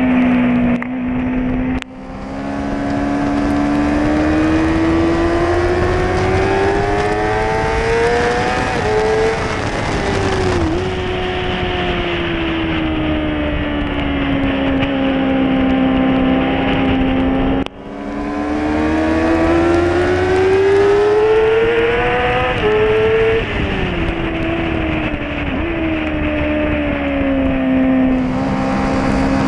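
Onboard sound of a motorcycle engine at track speed, its note climbing slowly and falling away again twice, with wind rushing over the camera. Twice, about two seconds in and again about eighteen seconds in, the sound drops out for a moment before the engine note starts climbing again.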